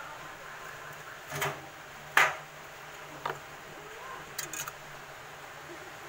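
Small handling noises of refrigerator wires being twisted together by hand: a few short clicks and rubs, the sharpest and loudest about two seconds in, and a quick pair of ticks near the end, over a faint steady low hum.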